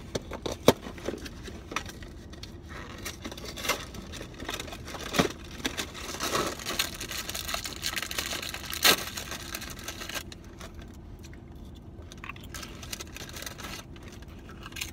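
Crinkling and tearing of a saltine-cracker box and its wrapped sleeve being opened and rummaged for crackers, a run of sharp crackles with a few louder snaps. It thins out to softer crackles from about ten seconds in.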